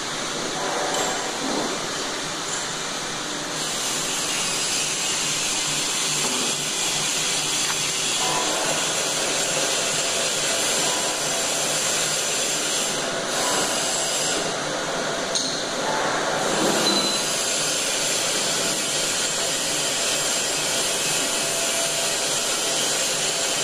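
Motor-driven inclined belt conveyors running steadily, giving a continuous mechanical running noise.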